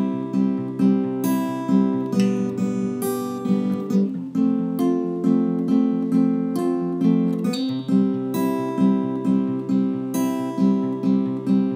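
Background music: acoustic guitar strummed in a steady rhythm of chords.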